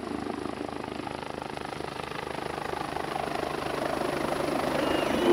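Helicopter rotor noise with a steady rhythmic beat of the blades, growing gradually louder.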